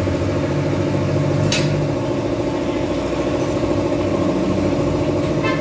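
An engine idling steadily, with one sharp click about a second and a half in.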